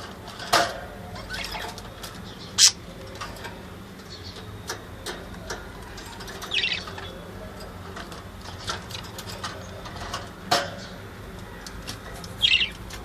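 Small birds (sparrows) chirping in short bursts, with wing flutters and scattered sharp clicks, the sharpest about two and a half seconds in.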